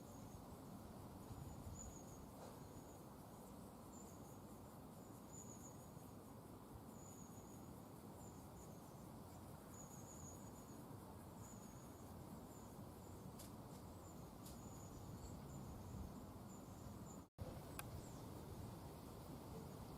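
Faint insect chirping outdoors: short high-pitched chirps repeating about once a second over a low, steady outdoor ambience, which cuts out for an instant near the end.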